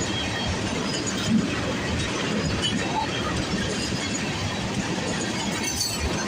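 Freight train cars rolling past on the rails: a steady noise of steel wheels on track, with one brief louder clank about a second and a half in.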